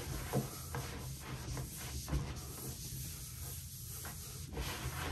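A 2000-grit Truecut sanding pad rubbed by hand over the surface of a bowling ball: a soft scuffing with a few light knocks.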